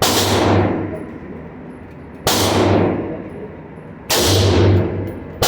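Three AR-15 rifle shots about two seconds apart, each with a sharp crack and a long echoing tail, and a fourth shot just at the end.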